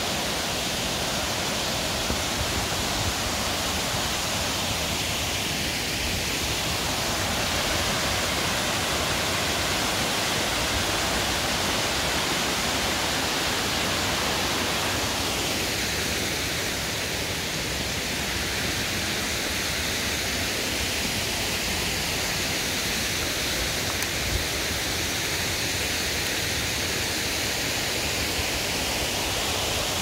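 Waterfall's rushing water, a steady, unbroken hiss.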